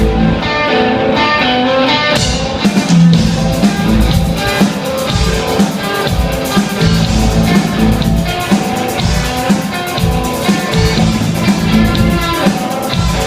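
Instrumental experimental rock band playing live: guitar over a drum kit with heavy kick-drum hits. The cymbals fill in about two seconds in.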